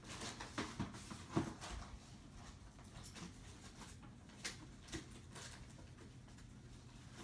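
Faint knocks and clicks of small objects being handled while someone rummages for a thin metal bracelet blank. There are several in the first second and a half and two more about four and a half and five seconds in.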